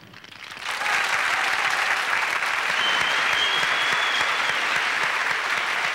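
Studio audience applauding, the clapping building up within the first second and then holding steady.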